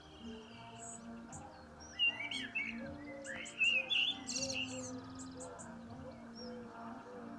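Garden birds chirping and singing, with a burst of louder chirps and trills between about two and four seconds in, over quiet Irish music.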